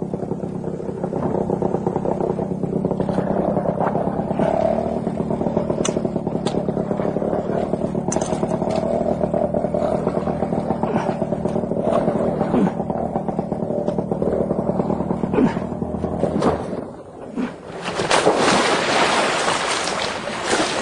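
Small outboard motor on a canoe running steadily under throttle, its propeller churning water while the boat is hung up on a log. About sixteen seconds in, the motor drops away. Near the end comes a large splash as a person goes into the river.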